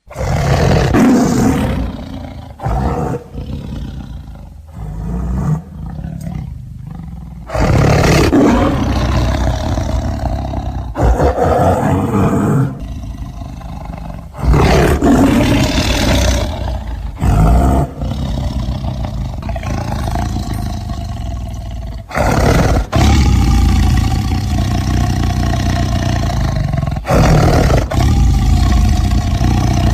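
Tiger roaring and growling over and over: a series of loud, deep, rough roars, each a few seconds long, with short quieter breaks between them.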